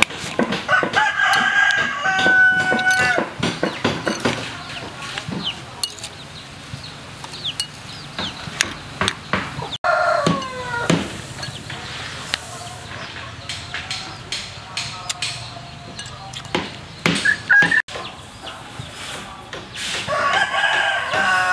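Rooster crowing three times, about a second in, near the middle and again at the end, with a metal spoon clinking against a ceramic bowl in between.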